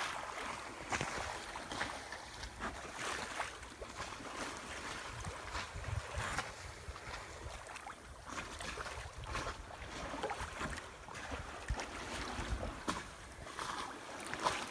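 Water lapping and splashing against the hull of a small sailing yacht, a steady wash broken by many short, irregular slaps.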